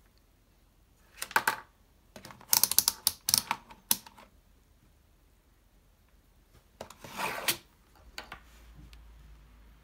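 A digital multimeter and its test leads being handled on a wooden workbench: clicks and rattles. There is a short burst about a second in, a dense run of sharp clicks from about two to four seconds, and another short burst at about seven seconds.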